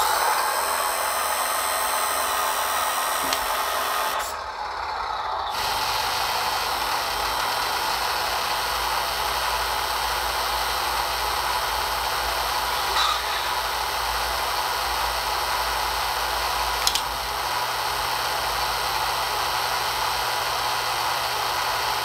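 Electric hydraulic pump of an RC model truck running steadily with a drill-like whine as it drives the Palfinger loading crane through its unfolding moves. It eases off briefly a little past four seconds in, then picks up again with a low hum beneath it.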